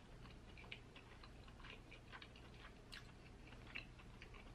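Faint close-up chewing of soft crab meat, heard as scattered small mouth clicks.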